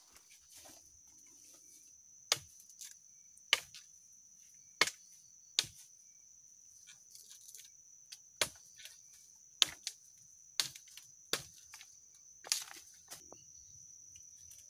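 Machete blows chopping wood, about nine sharp strikes at irregular intervals, over a steady high-pitched insect drone.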